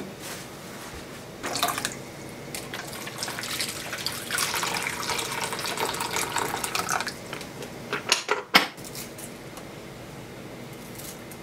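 Water running or pouring for a few seconds, then a couple of sharp knocks.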